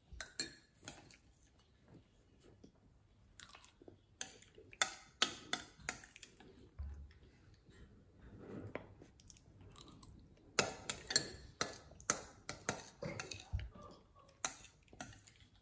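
Metal spoons clinking and scraping on ceramic bowls of oatmeal, mixed with chewing, as a string of sharp clicks, busiest a few seconds before the end.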